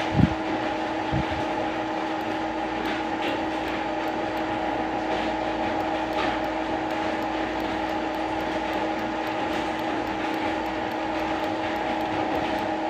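Steady mechanical hum made of several constant tones over a noisy drone, with two low thumps near the start.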